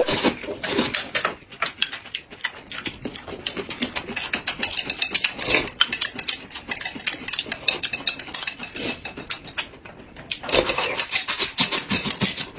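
Close-miked eating sounds: noodles being slurped and chewed, a fast, irregular run of wet clicks and smacks, with a louder burst of slurping near the end as the last noodles are sucked off the plate.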